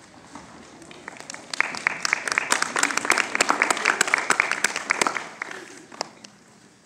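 Audience applauding: clapping builds up about a second in, holds for a few seconds, then dies away.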